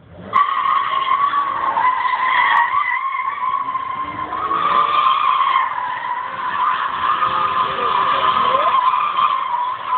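A BMW's spinning tyres squealing in one long, steady screech, a sustained high squeal with a slight wavering pitch, as the car burns its tyres in a cloud of smoke.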